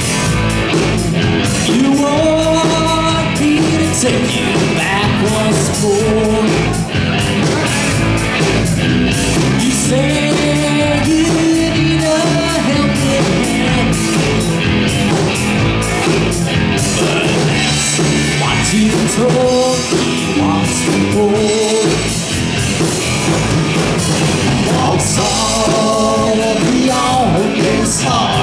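Live rock band playing loudly: electric guitar, electric bass and a drum kit, with a lead vocal over it at times.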